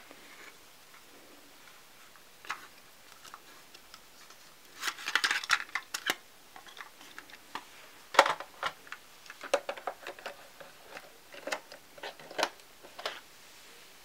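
Plastic clicks and rattles of a cassette tape being handled and loaded into a Lakeshore classroom cassette player, its tape door snapped shut. A rattling flurry comes about five seconds in, a sharp click a little after eight seconds, then a string of lighter clicks.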